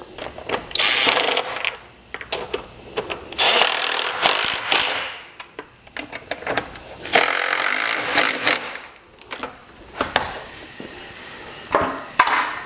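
Cordless brushless power ratchet (Milwaukee M12 Fuel) running in three short bursts of about a second and a half each, snugging down two 8 mm bolts. A couple of sharp clicks come near the end.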